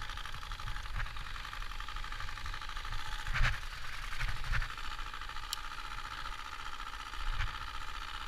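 A card flapping against the spokes of a riding bicycle inside a fake exhaust-pipe attachment, making a steady, rapid, buzzing clatter like a small motorbike engine. A few knocks come around the middle.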